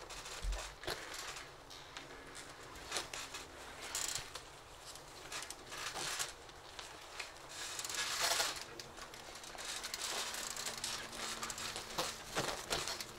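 Clothing rustling and scuffing as people grapple and shift their bodies on the ground, with a few soft knocks from bodies or limbs meeting the floor.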